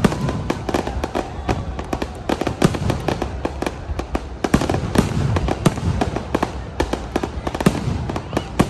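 Fireworks going off in a dense, continuous run of sharp bangs and cracks, several a second, with no pause.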